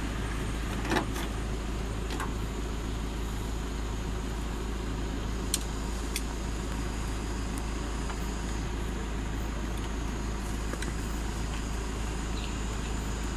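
Motor vehicle engine running steadily, with a few sharp clicks now and then.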